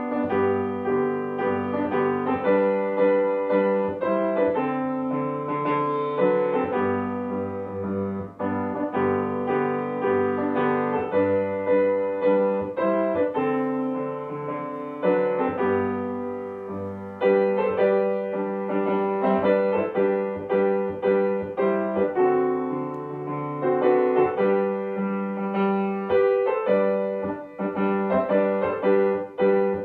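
Solo piano music: a steady stream of struck notes and chords, each ringing and fading.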